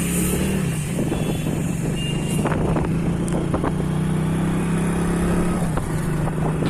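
A motor vehicle's engine running steadily at a constant speed, a low drone with scattered rattles and knocks over it.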